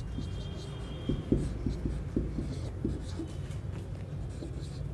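Marker pen writing on a whiteboard: short irregular scratchy strokes, with a thin high squeak during the first second.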